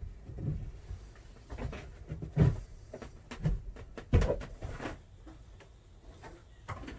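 An FRP wall panel being handled and pressed against the wall: irregular knocks and bumps, about eight in all, with light scuffing between them. The loudest knocks come about two and a half and four seconds in.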